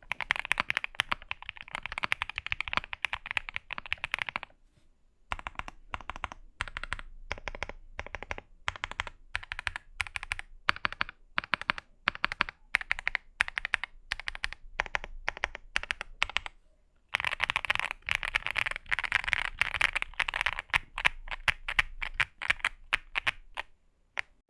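Typing on a mechanical keyboard fitted with Designer Studio Starry linear switches: fast continuous clacking, a short pause, then a run of separate keystrokes about two or three a second, another short pause, then fast typing again.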